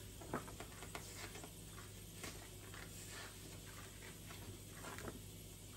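Stuffed waffle maker cooking with its lid closed: faint, irregular crackles and ticks as the batter sizzles and steam sputters out of the sides, over a steady low hum.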